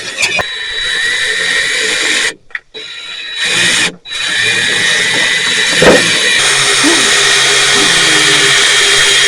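Electric power drill boring holes through the thin sheet-metal of a truck hood. It stops twice within the first four seconds, then runs steadily, with one sharp knock about six seconds in.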